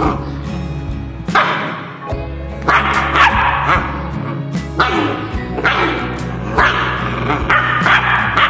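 A puppy barking in repeated short yaps, about once a second, over steady background music.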